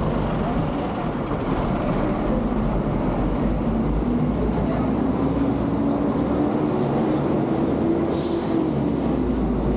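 Street traffic with a large vehicle's engine hum that slowly rises in pitch and settles back. A short hiss comes about eight seconds in.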